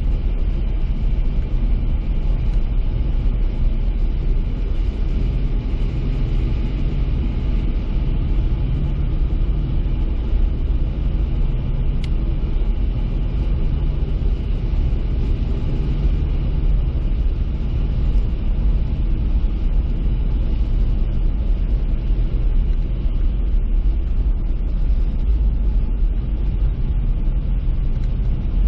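A car driving, heard from inside: a steady low rumble of engine and tyre noise, with one short click about twelve seconds in.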